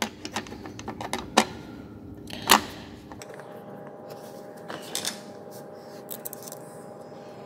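Light metallic clicks and knocks of small metal parts being handled and fitted into the feed-dog area of a Kansai Special multi-needle sewing machine. The taps are scattered, with the sharpest one about two and a half seconds in and a few more near the middle.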